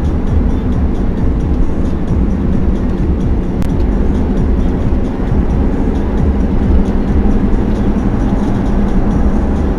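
Steady low rumble of a car's tyres and engine cruising at highway speed, heard from inside the cabin.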